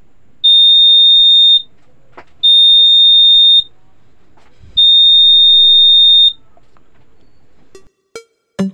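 Alarm buzzer of a homemade PIR motion-sensor security alarm sounding three long, steady, high-pitched beeps, each a little over a second, with short gaps between them.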